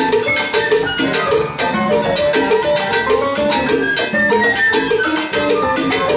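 Live salsa band playing, with timbales struck with sticks among dense, steady percussion and pitched instruments.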